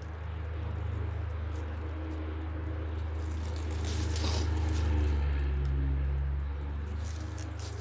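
A low, steady mechanical hum like a running motor or engine, growing a little louder around the middle and easing off again, with light rustling over it.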